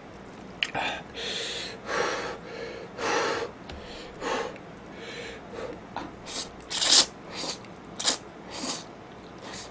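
A person slurping instant ramen noodles off chopsticks: a string of short, breathy sucking slurps, the loudest about seven seconds in, with chewing between them.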